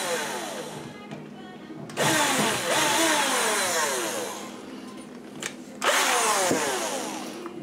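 Cordless drill-driver running in reverse to back out a sheetrock screw. It comes in twice, about two seconds in and again near six seconds, each time starting suddenly and fading with a falling whine.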